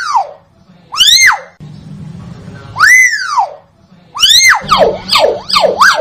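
Hill myna giving loud whistled calls, each rising and then falling in pitch, about every one and a half to two seconds, then a quick run of four short swooping notes near the end.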